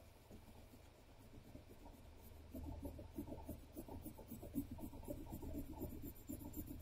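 Graphite pencil scratching across sketchbook paper in quick back-and-forth hatching strokes, shading a drawing darker. The strokes start about a second and a half in and grow a little louder.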